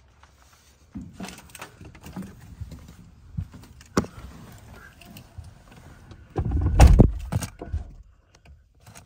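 A few light knocks and clicks inside a car, then, about six and a half seconds in, a cold Mercedes-Benz engine is started: a loud, low burst of the starter and the engine catching, lasting about a second, then settling to a quiet idle. The engine is stone cold after three days parked.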